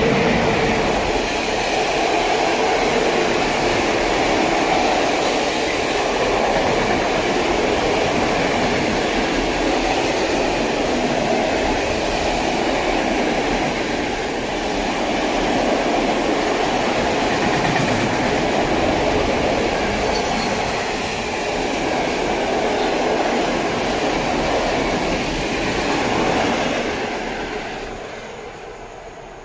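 Freight train of open wagons behind an ET22 electric locomotive passing at speed, with a steady rolling noise of wheels on rail. The noise fades near the end as the train's tail draws away.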